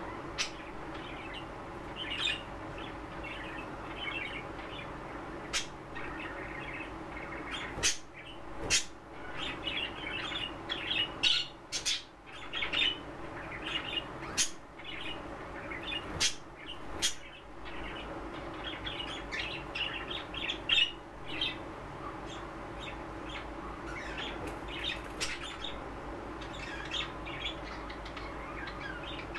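Pet budgerigars chirping and chattering in their cage, with many sharp short clicks now and then, busiest in the middle, over a steady low background hum.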